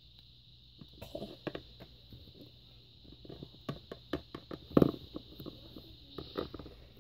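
Small plastic Littlest Pet Shop toy figures and accessories being handled and set down on a tabletop: scattered light clicks and taps, with one louder knock about five seconds in.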